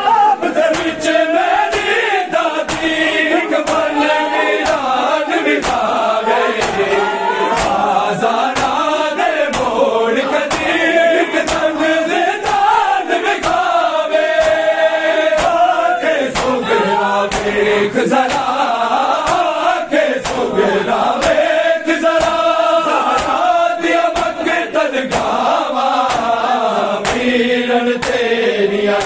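A group of men chanting a Punjabi noha, a Shia mourning lament, in unison. Over it runs a steady rhythm of sharp slaps from bare-chested mourners beating their chests (matam).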